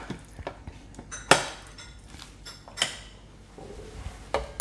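A spoon stirring thick glutinous rice and black-eyed pea pudding in an Instant Pot's stainless steel inner pot, knocking against the pot several times with sharp clinks, the loudest about a second in.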